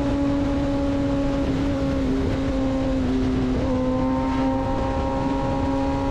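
Kawasaki Ninja ZX-10R's inline-four engine running at steady high revs while riding, its note wavering and shifting slightly a little under four seconds in, over a constant low rush of wind noise.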